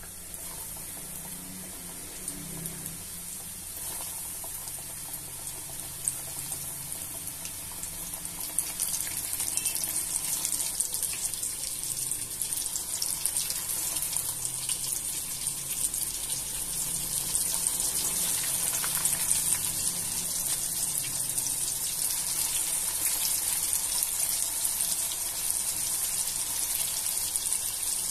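Flour-coated chicken pieces frying in hot oil in a pan: a steady sizzle with fine crackling, getting louder as more pieces are dropped in.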